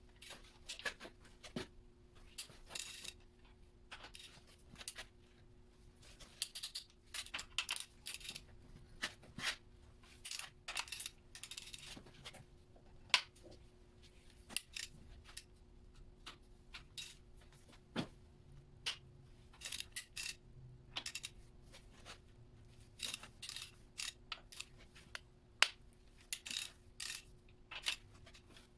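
Metal tools and small steel parts clinking and tapping irregularly, over a faint steady hum.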